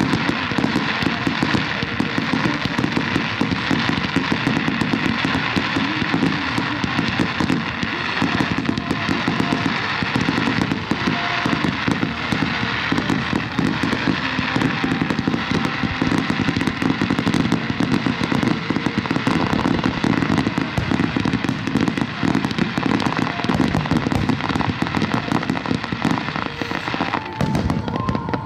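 Fireworks display: a dense, unbroken stream of pops and bangs from many shells bursting in quick succession.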